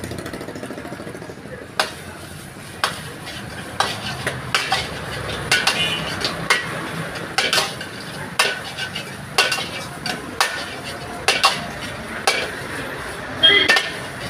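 Metal ladle clanking and scraping against a steel wok while stir-frying chow mein noodles over a gas burner, about one strike a second, with the food sizzling underneath.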